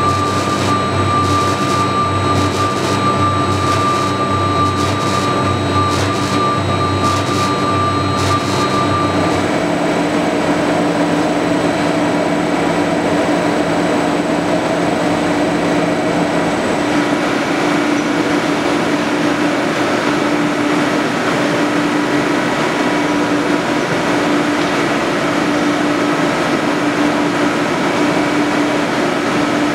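UNISIG B700 BTA deep hole drilling machine running: a steady, loud mechanical drone with a high whining tone and a low hum that both stop about nine seconds in, leaving a steadier mid-pitched hum.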